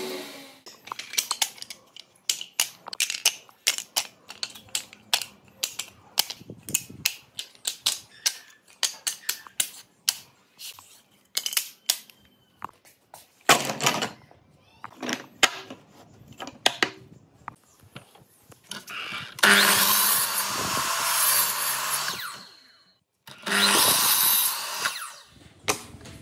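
Short wooden pallet-board pieces clacking and knocking against each other and the workbench top as they are handled and stacked, many quick hard clicks. A few longer stretches of rushing, scraping noise come in later, one about halfway through and two near the end.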